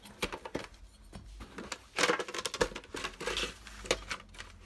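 Hands handling a DVD collector's edition case and its card inserts: a run of sharp clicks and taps from the case, with short bursts of rustling card and paper.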